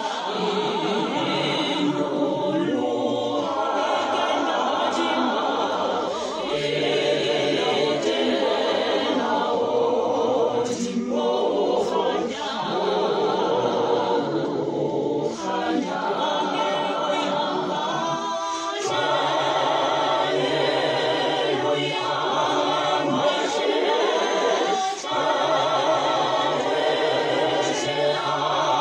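A man and a woman singing a hymn a cappella in harmony, in long held phrases with short pauses for breath every few seconds.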